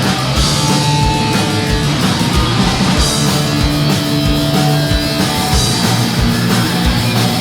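Punk rock band playing live, an instrumental passage with no vocals: loud guitars and bass over a steady drum beat.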